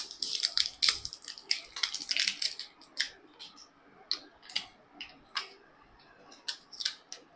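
Batteries being fitted into a plastic TV remote: a dense run of small plastic clicks and rattles over the first three seconds or so, then scattered single clicks.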